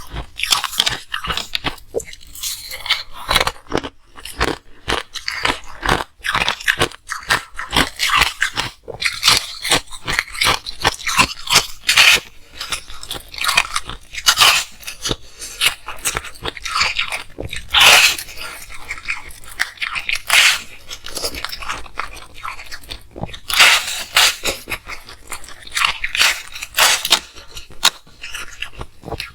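Ice being bitten and chewed close to the microphone: a continuous run of irregular, sharp crunching and crackling.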